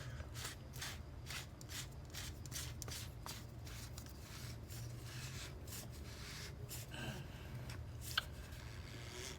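Rhythmic rubbing and scraping, about three strokes a second, as the oil filter housing cap is twisted on by hand. The strokes thin out near the end.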